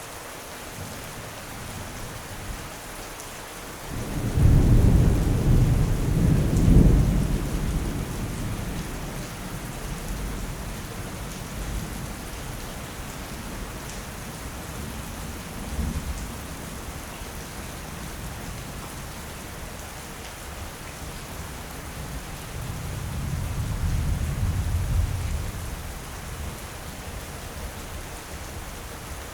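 Steady rain with a thunderstorm. A loud thunderclap breaks about four seconds in and rumbles on for several seconds, and a softer roll of thunder comes near the end.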